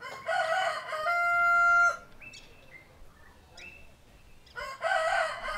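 A rooster crowing twice: each crow opens with a broken, wavering phrase and ends in a long held note, the second starting near the end. A couple of faint short chirps fall in the gap between them.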